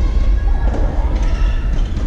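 Music with heavy, dense bass.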